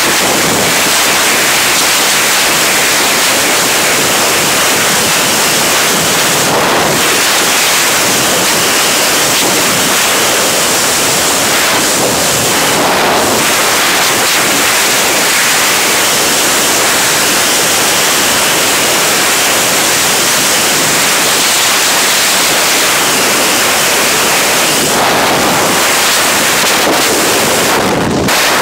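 Loud, steady rush of freefall airflow buffeting a skydiving camera's microphone.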